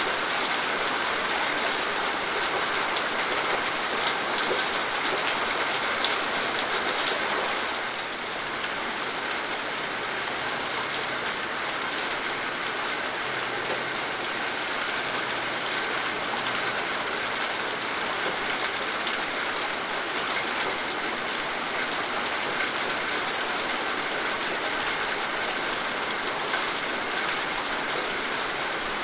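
Steady rain falling, an even dense hiss with fine scattered drop ticks; it eases slightly about eight seconds in.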